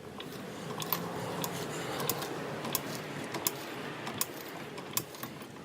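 Hydraulic jack being pumped to lift a car, a sharp metallic click on each stroke, about one every two-thirds of a second.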